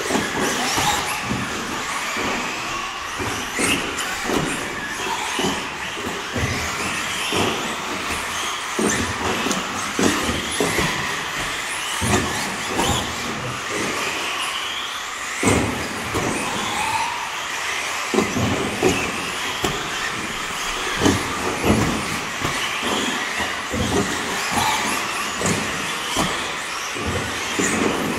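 Several electric 1/10-scale RC buggies, among them a Schumacher Cat L1 with a brushless motor, racing on a carpet track: motors and drivetrains whine up and down with the throttle over tyre noise, with frequent knocks and thuds from landings and contacts, in a large hall.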